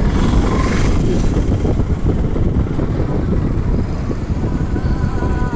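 Wind buffeting the microphone of a Hero XPulse 200 motorcycle under way, over the steady noise of the road and engine, a little brighter in the first second.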